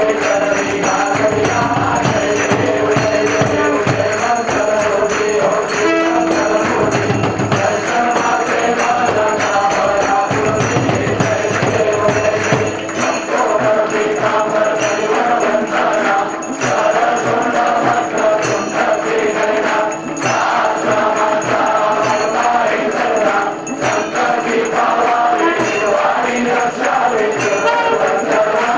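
Devotees singing a Hindu aarti in chorus, with clapping and jingling percussion keeping the beat. Under it runs a steady held note, which stops for a couple of seconds early on and ends near the finish.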